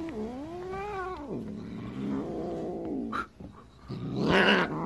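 Siamese cat yowling at another cat: one long wavering yowl that rises and falls, then a lower drawn-out growl, then a harsh hiss near the end, the loudest sound here. It is hostile warning, not play.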